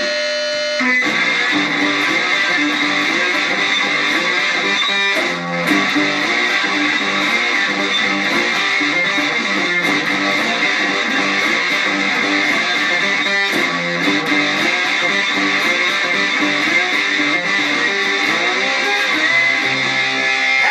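Guitar music, with plucked and strummed guitar notes running through at a steady level.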